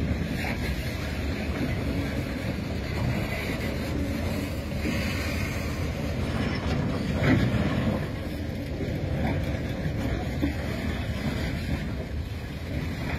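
Steady low rumble of a moving vehicle, with wind buffeting the microphone; a brief louder moment about seven seconds in.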